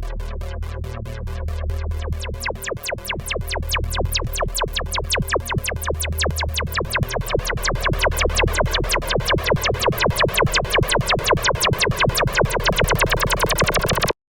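Roland synthesizer playing an experimental patch: a rapid, even stream of clicky pulses, about eight a second, over a low bass drone and sustained mid tones. It grows louder and cuts off abruptly near the end.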